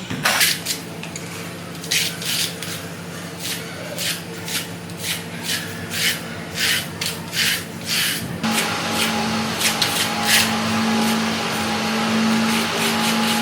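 A notch trowel scraping FRP adhesive across the back of an aluminum diamond plate panel in repeated strokes, about two a second. A steady low hum comes in a little past eight seconds in.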